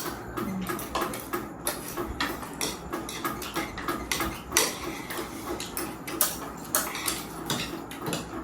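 Eating utensils clinking and scraping against dishes during a meal, in many quick, irregular clicks.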